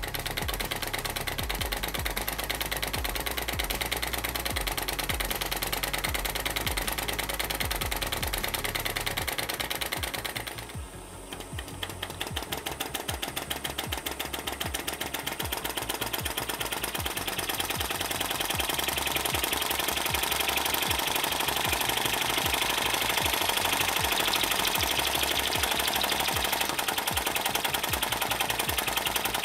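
Brass flame licker (vacuum) engine model running fast, its valve and piston making a rapid, even clatter as the torch flame is drawn in at the cylinder head, over the hiss of the butane torch. The clatter drops away briefly about ten seconds in, then picks up again.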